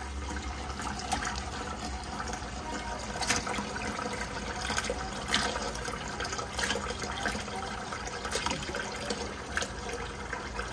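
Kitchen tap running into a plastic container of cut beef organ meat in a stainless steel sink, the water splashing over the pieces as they are rinsed, with occasional sharper splashes.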